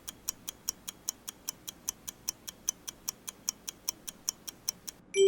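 Countdown timer sound effect: a clock-like ticking at about five ticks a second, ending near the end in a single bright ding.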